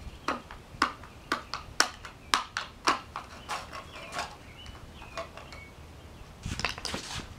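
A screwdriver jabbed repeatedly into a torn-open lithium-ion phone battery inside a small metal can, making a quick run of sharp metallic clicks, about three a second for the first four seconds or so. A short scuffing noise comes near the end.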